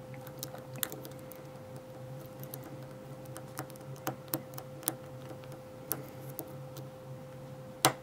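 A lock pick working the pins inside an ASSA Ruko 2 padlock's cylinder: small, sharp, irregular clicks of the pick and pins, one louder click near the end. A faint steady hum runs underneath.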